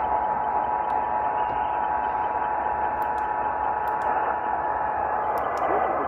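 A portable AM radio on 650 AM plays a hissy, noisy broadcast carrying the Emergency Alert System attention signal, a steady two-tone sound that stops shortly before the end.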